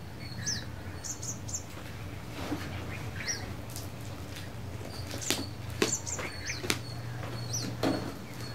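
Birds chirping with short high calls, while a camera box and its packaging are handled and opened, giving scattered clicks and rustles that come thicker from about five seconds in, over a faint steady low hum.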